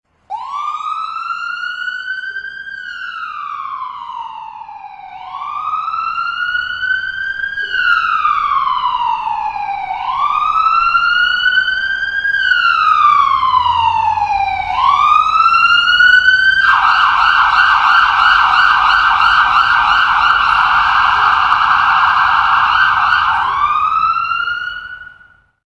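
Ambulance siren in wail mode, each cycle rising quickly and falling slowly, about every five seconds, growing louder over the first ten seconds. About sixteen seconds in it switches to a fast yelp, then gives one last rise and cuts off near the end.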